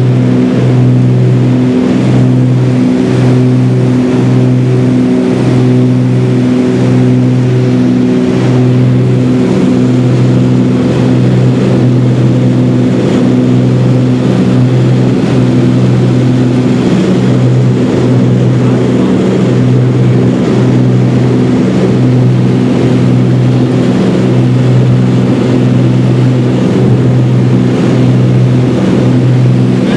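Loud steady cabin drone of a Beechcraft Baron's two six-cylinder piston engines and propellers in flight. The low hum pulses with a slow beat about once a second, most marked in the first half.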